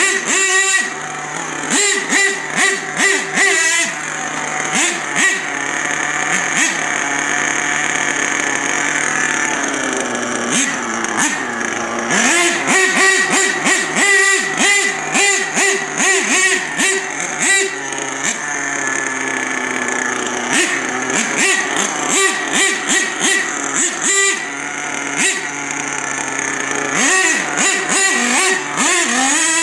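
HPI Savage X 4.6 RC monster truck's small two-stroke nitro engine, revved in many quick blips with a few steadier stretches in between.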